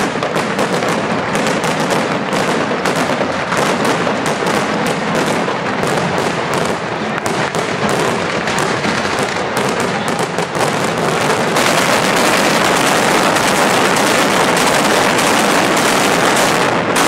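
Mascletà pyrotechnics exploding in a rapid, unbroken crackle of bangs, with ground firecrackers and aerial shells going off together. About eleven and a half seconds in, the bangs merge into a denser, louder continuous barrage.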